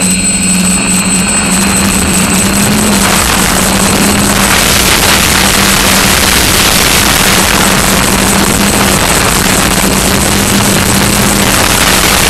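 Quadcopter's electric motors and propellers humming steadily, heard from the camera mounted on the craft. A loud rush of wind on the microphone builds about three to four seconds in.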